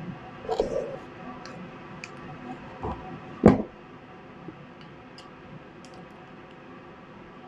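Handling sounds from a tablet's packaging: a few soft knocks and small clicks, with one sharper knock about three and a half seconds in.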